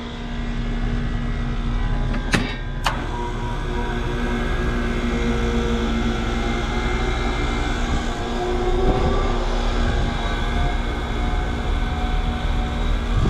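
Air-conditioning condenser unit running: a steady mechanical hum with a low steady tone. Two sharp clicks come a couple of seconds in.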